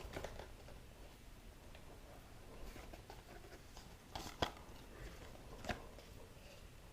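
Faint handling of a cardboard headphone box and its packaging: soft rustling with a few sharp clicks or taps, the loudest about four and a half seconds in and another near six seconds.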